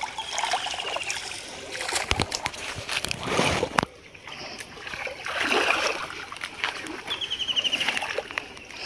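Muddy pond water splashing and sloshing in irregular bursts as people wade and grope with their hands under the water for fish, the loudest splash a little past the middle.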